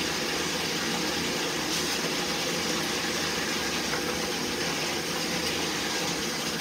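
Bathtub faucet running, water pouring steadily into a filling tub.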